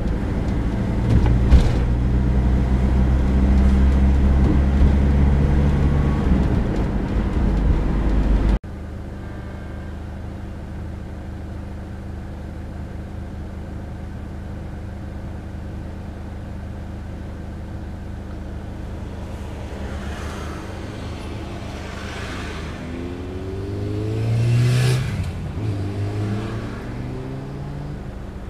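Car engine and road noise heard inside a moving car's cabin: a loud, steady hum that cuts off suddenly about eight seconds in to a quieter steady hum. About 23 seconds in an engine speeds up, rising in pitch and getting louder for a couple of seconds, then settles back.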